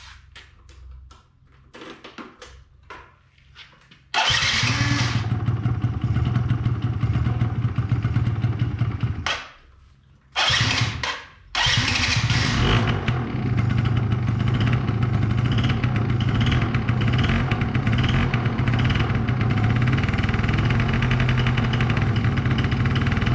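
2005 Yamaha Zuma YW50's 49cc two-stroke engine cold-starting. After about four seconds of quiet it catches and runs for about five seconds, then dies. It fires briefly again and then keeps running steadily.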